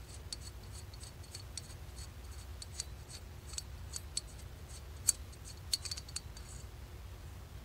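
Faint, irregular light metallic ticks and scraping as the idle speed screw is turned out by hand from a Mikuni two-stroke carburetor's body, with a few sharper clicks near the end before it stops.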